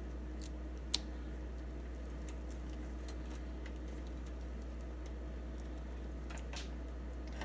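Small plastic clicks and handling noise as a four-pin drive power connector and clip-on test leads are plugged in and moved about, with one sharper click about a second in, over a steady low hum.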